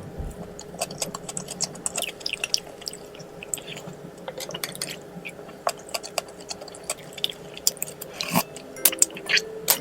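Close-up eating sounds: chewing, with many small sharp clicks and clinks of cutlery against dishes, the loudest a pair of clinks near the end.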